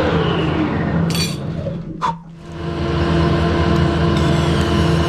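Harrison lathe running steadily with its chuck spinning, a steady low machine hum. A short metallic clink about a second in, and the sound briefly drops away around two seconds in before the hum returns.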